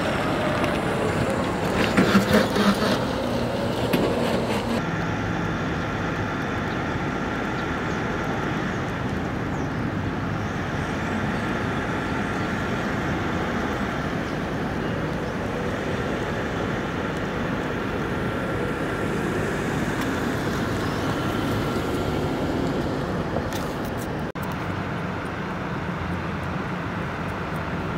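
Steady outdoor vehicle and traffic noise, with a short run of louder knocks about two seconds in.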